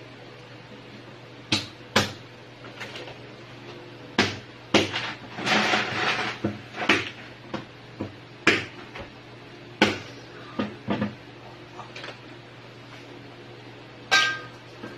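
A kitchen knife chopping crab on a plastic cutting board: sharp, irregular knocks about a second apart, with a short clatter about halfway through and a ringing clink near the end. A steady low hum runs underneath.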